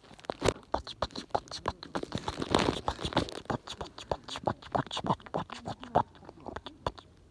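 Bonfire crackling: irregular sharp pops and snaps of burning wood, several a second.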